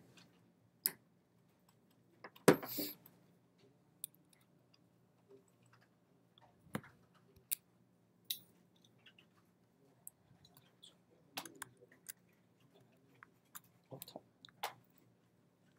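Scattered faint clicks and taps of someone working at a computer, with a single louder knock about two and a half seconds in and a small cluster of clicks near the end.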